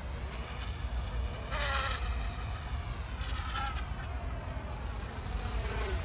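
Eachine ATOMRC Seagull 3.5-inch cinewhoop FPV racing drone in flight, its motors and propellers buzzing with a whine that falls and rises as the throttle changes; it is flying on a cracked propeller.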